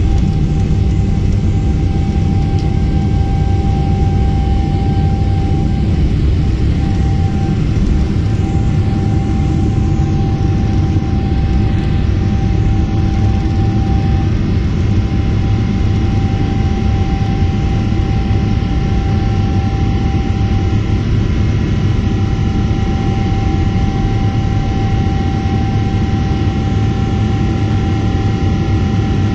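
Boeing 777-300ER's GE90-115B turbofans at takeoff thrust, heard from inside the cabin over the wing: a steady, loud rumble with a steady fan tone over it, through liftoff and the initial climb.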